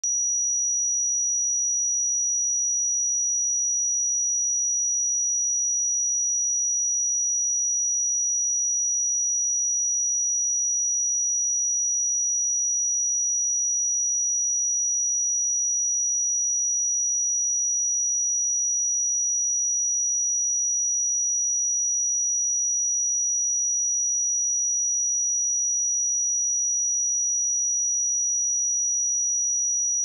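A steady pure sine-wave test tone at 5817 Hz, a single high-pitched whistle-like pitch held unchanged at constant level.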